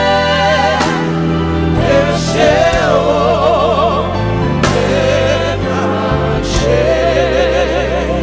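Live gospel worship song: voices sing long, wavering held notes over sustained bass and keyboard chords from a band.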